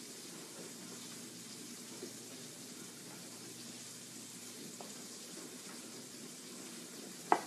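Faint, steady sizzle of turkey burgers frying in a pan, with a few light knife taps on a wooden cutting board and one sharp knock near the end.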